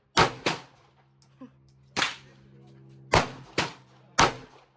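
Handgun shots at a range: six sharp reports at an uneven pace, a quick pair right at the start, one about two seconds in, another quick pair a little after three seconds, and a last shot near the end.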